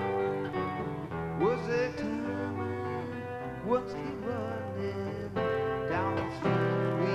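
Live acoustic and electric guitar playing together: a strummed acoustic rhythm under a melodic electric lead whose notes are bent and slid upward, several times.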